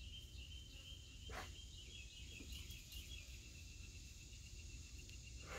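Faint outdoor quiet with a steady high-pitched insect trill, a few faint chirps in the middle, and one brief soft sound about a second in.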